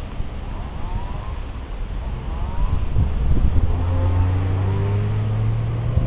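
Motor vehicle engine running with a steady low hum over a rushing noise; the engine note grows louder and steadier a little past halfway through.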